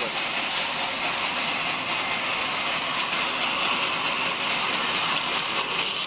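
Large band saw ripping a thick wooden beam lengthwise: the blade cutting through the wood with a steady, unbroken noise.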